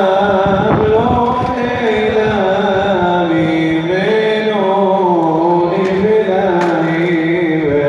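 Music: a sung, chant-like melody that rises and falls slowly over a steady low drone.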